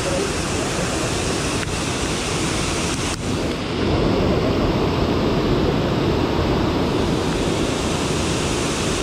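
Steady rushing noise of water pouring through a dam's open spillway gates, mixed with heavy rain. About three seconds in it briefly dips, then comes back louder and fuller.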